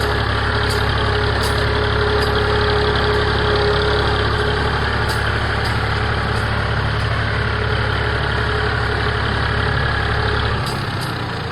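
Tractor engine running steadily while it pulls a middle buster through a potato row. Its low note drops near the end.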